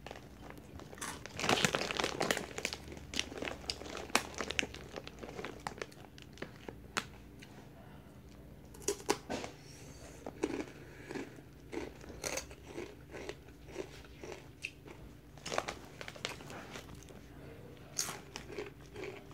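A person crunching and chewing Takis, rolled hot chili pepper and lime tortilla chips, close to the microphone. There is a dense run of loud crunches about two seconds in, then scattered crunches and chewing.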